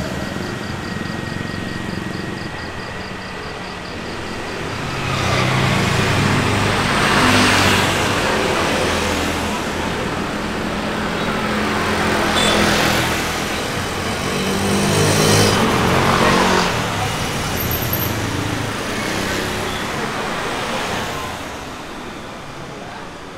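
Street traffic with engines running: three vehicles pass close by one after another, each swelling up and fading away over a few seconds, over a steady background of road noise.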